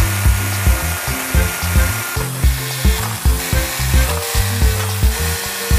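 Background music with a steady beat and bass line, over a steady hiss from an electric drill working against a DVR's metal case.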